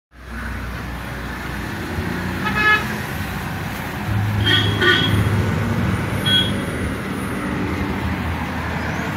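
Road traffic with a vehicle engine running and four short horn toots: one a few seconds in, two close together in the middle, and one more shortly after.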